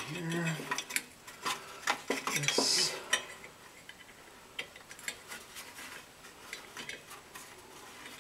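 Small metal clinks, clicks and scrapes of a Torx key being worked in the hub of a blower motor's fan wheel to undo the screw that holds it. The handling is busiest in the first three seconds, then thins to a few light clicks.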